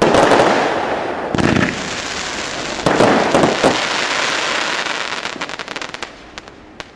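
New Year's fireworks going off: a loud bang at the start, more bursts about a second and a half and three seconds in, then a trail of sharp crackling pops that thins out and fades.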